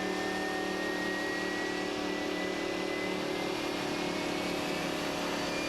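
Steady Boeing 767 cockpit noise during pushback, before the engines are started: an even hum with a faint whine that rises slowly in pitch.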